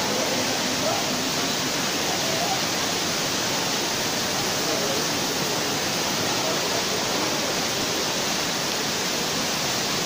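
Waterfall pouring down a cliff of basalt columns: a steady, unbroken rush of falling and splashing water. Faint voices of a crowd murmur underneath.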